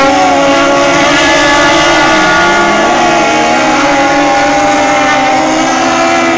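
Several racing powerboat engines at full throttle as the boats pull away from the start, their pitches shifting together, with one dipping and rising again a couple of seconds in.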